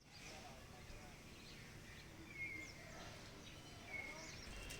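Faint bird chirps: a scatter of short whistled notes, two of them clearer about halfway through and near the end, over a low steady background rumble.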